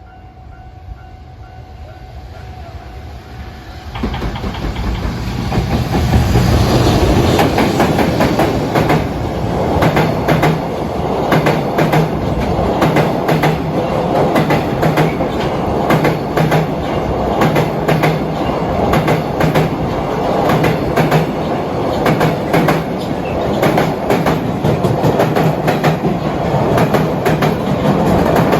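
A train approaches, growing louder over the first few seconds, then passes close with a steady rumble. Its wheels click over the rail joints in a rapid, even clickety-clack.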